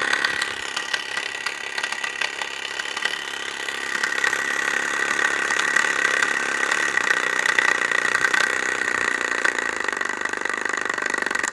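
Tiny 3D-printed solenoid engine running fast: a dense, rapid clatter with a steady high whine, cutting off abruptly at the end.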